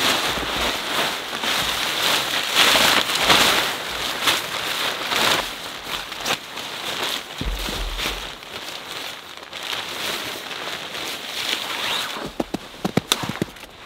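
Nylon camping gear rustling and crinkling as it is pulled out and shaken open by hand, with a few sharper clicks near the end.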